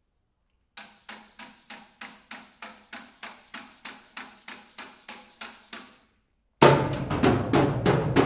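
A metal percussion instrument struck in a steady pulse of about four strokes a second, each stroke ringing high. About six and a half seconds in, the whole percussion ensemble comes in loudly, drums included.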